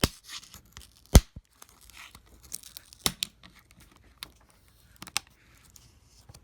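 A tool scraping and clicking against a MacBook Pro A1398 aluminium top case as it pries at the small rivets holding the keyboard and backlight, which are not popping out of their holes. A handful of sharp clicks, the loudest about a second in, with faint scraping between them.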